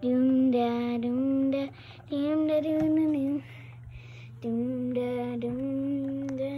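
A girl's voice singing slow, long held notes in three phrases with short breaks between them.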